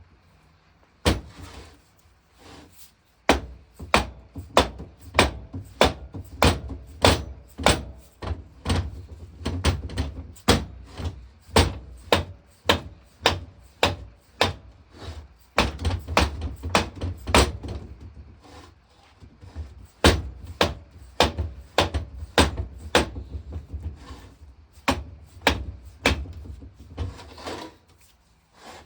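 Repeated hammer blows, about two a second in runs with short pauses, knocking at an old engine water pump to get it apart.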